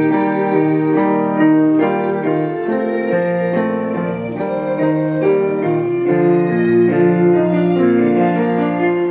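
Live band playing a slow instrumental introduction: held keyboard piano chords over a bass guitar line, with a light tick on each beat, a little under once a second.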